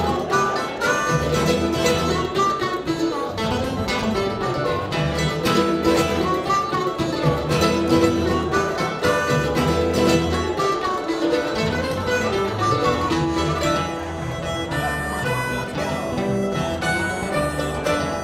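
A live acoustic band playing upright bass and acoustic guitar, with a steady strummed rhythm, a walking low bass line and a lead line of quick plucked notes over the top.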